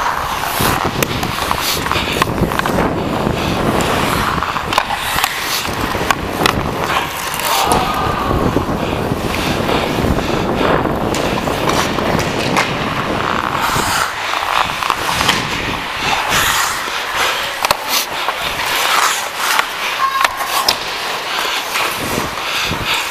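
Ice hockey skate blades scraping and carving on the ice, heard close up from a skating player, with sharp clicks of the stick handling the puck.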